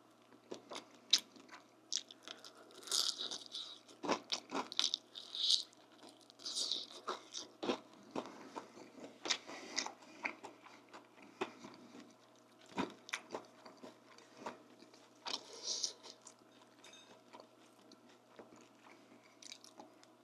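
A person eating close to the microphone: chewing with wet mouth clicks and lip smacking, broken by several loud, crisp crunches of bites into crunchy food.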